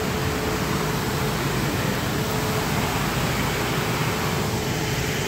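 Steady rushing wind noise on the microphone with a faint steady machine hum underneath.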